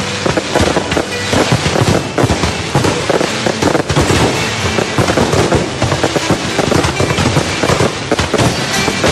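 Fireworks going off in a dense, continuous barrage of bangs and crackles, with music playing underneath.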